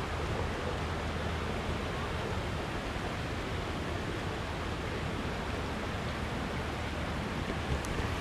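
Steady rush of running water in a fish hatchery's concrete raceways, with a low steady hum underneath. A couple of faint clicks come near the end.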